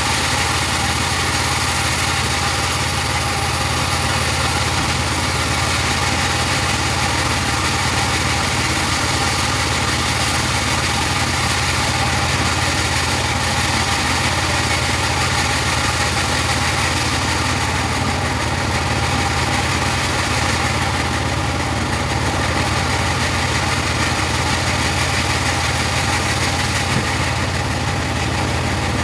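Engine of a portable bandsaw sawmill running steadily.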